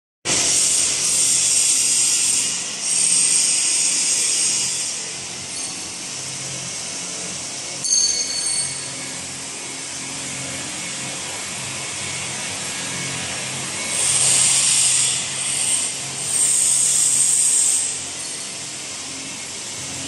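Factory-floor machinery noise: a steady low hum under repeated bursts of loud hiss, each lasting one to two seconds, with a brief clatter about eight seconds in.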